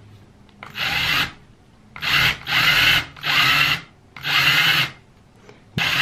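Ryobi cordless drill with a small drill bit spinning in five short bursts, each winding up with a rising whine, as the bit is pressed into the head of a stripped Phillips laptop screw to bite into it; near the end it starts running continuously.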